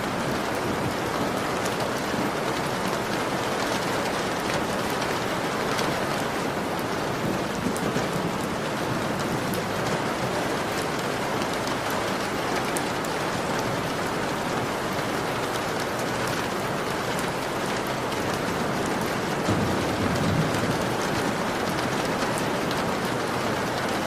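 Heavy rain beating steadily on a window pane, a dense hiss with many fine drop ticks. A brief low rumble swells up near the end.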